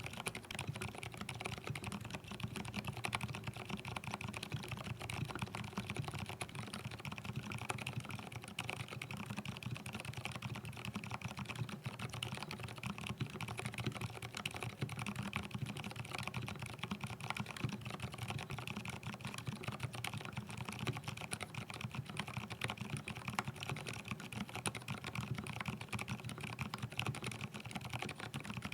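Continuous typing on a mechanical keyboard with lubed Gateron Silent Brown switches on an aluminium-plate mStone Groove T: a steady, dense stream of keystrokes without pauses.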